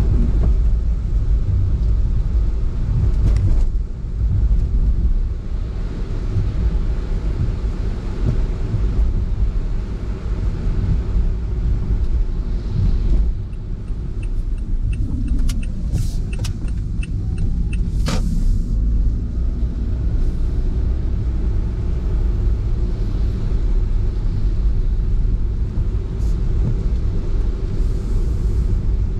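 Steady low rumble of road and engine noise from a car being driven, heard through an in-car dashcam. Midway there is a short run of evenly spaced ticks, about two a second, followed by one brief sharp noise.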